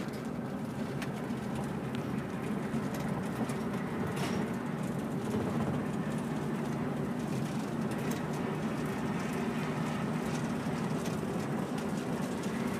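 Steady drone of a 1968 GMC 4903 bus coach under way, its diesel engine and road noise heard from inside the driver's cabin.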